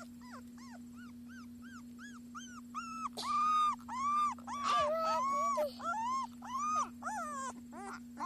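Young puppies whimpering and crying: a run of short squeals that rise and fall in pitch, a few a second, turning louder and longer about three seconds in, with two pups crying at once at times.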